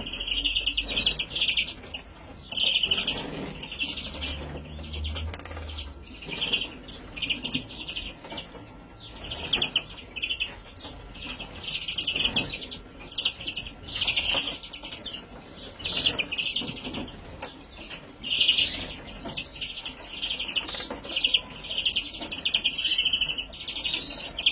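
Young greenfinch calling, repeating short bursts of rapid chirps about once a second.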